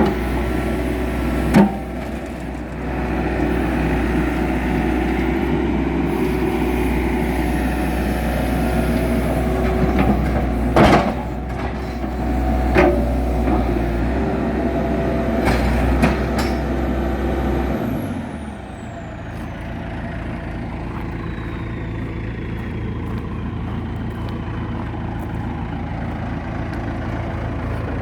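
1998 JCB backhoe's diesel engine running at raised revs, with several sharp clunks, then dropping to a steady idle about two-thirds of the way through, a high whine falling away as it slows.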